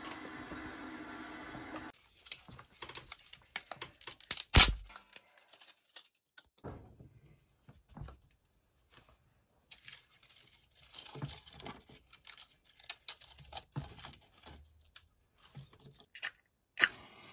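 A steady noise cuts off about two seconds in. Then come scattered crinkling, tearing and clicking handling sounds, with a sharp knock about four and a half seconds in and another near the end.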